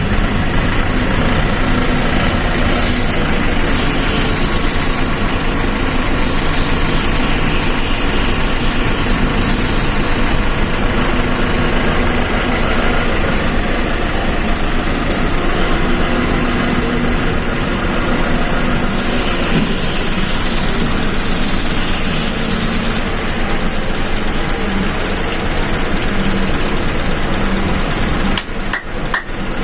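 A loud, steady motor-like hum runs without pause, then a brief dip with a few sharp clicks comes near the end.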